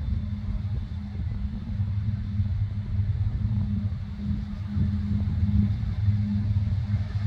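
Krone BiG M 450 self-propelled mower's diesel engine running under load while mowing green rye, a steady deep drone that swells and eases slightly.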